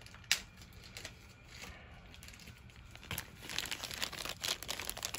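Plastic packaging crinkling and rustling in a child's hands, getting busier from about three seconds in, after a single sharp click just after the start.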